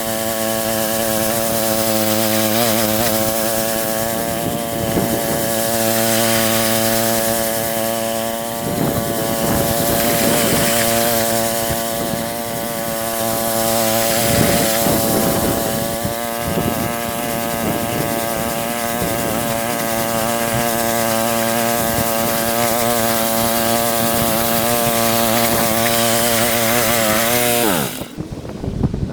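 Westermann petrol-engined moss brush running steadily while its rotating wire brush scrubs moss off uneven paving, the scraping swelling and fading as the brush is worked over the surface. Near the end the engine cuts out and runs down.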